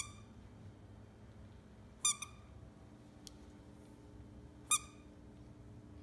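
Squeaker inside a plush dog toy squeaking as a Savannah cat bites it: three short, high squeaks a couple of seconds apart, the middle one a quick double.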